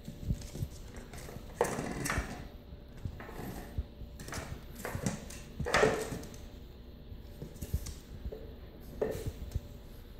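A French bulldog puppy playing with an empty plastic water bottle: irregular crinkling, crackling and knocking of the plastic, with louder bursts of crackle about two, six and nine seconds in.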